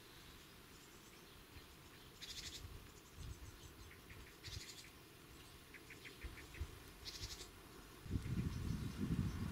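Quiet countryside ambience: three short, buzzy chirring calls from a small animal a couple of seconds apart, and a brief run of ticks. Near the end, wind starts buffeting the microphone with a low rumble.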